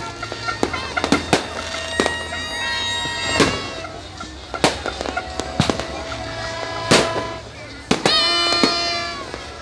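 Fireworks going off in sharp, irregular bangs, roughly a dozen, with several held horn-like tones sounding among them.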